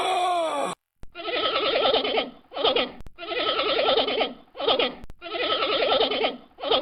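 Bleating livestock: a long, wavering bleat followed by a short one, repeated three times at a steady pace. Before this, another animal call ends and there is a brief gap.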